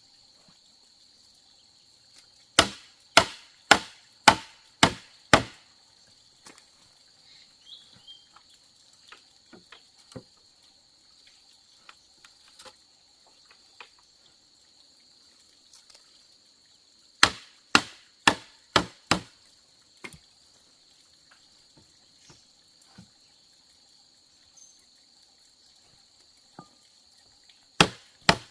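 Bamboo being chopped: sharp chopping strikes in three bursts, about six at roughly two a second a few seconds in, five more past the middle, and two near the end. A steady high insect drone runs underneath.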